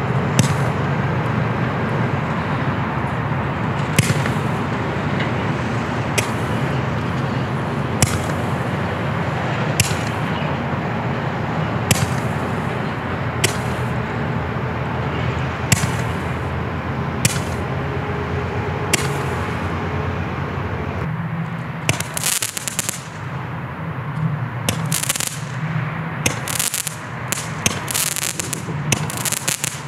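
Black Cat 10-ball Roman candle firing: a sharp pop about every two seconds as each ball is shot out, over a steady rushing background. From about two-thirds through come dense bursts of crackling from the crackling stars.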